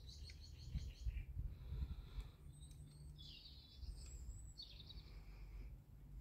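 A small bird singing in the background: several short phrases of quick repeated chirps and trills, over a steady low rumble.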